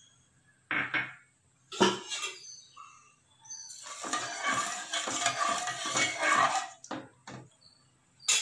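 A metal spoon knocking against an aluminium pressure-cooker pot a couple of times, then stirring rice and moong dal in water for about three seconds, scraping the pot and swishing the water, with a few more short taps near the end.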